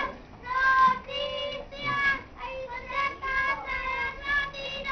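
A young child singing a melody in short phrases, with held notes and brief breaks between them.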